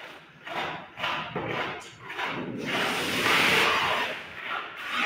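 Hand trowel scraping and rubbing cement plaster across a wall in short strokes, then one longer, louder stroke about halfway through.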